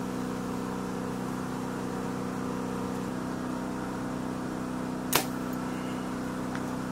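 A single sharp crack of a compound bow being shot, about five seconds in, over a steady low hum.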